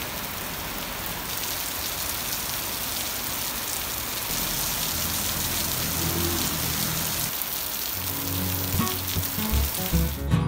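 Heavy rain pouring onto a wet street and a parked vehicle, a steady hiss of drops splashing on the road surface.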